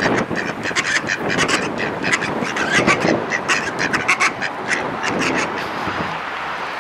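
Mallards quacking repeatedly in short, irregular calls, over a steady hiss of wind.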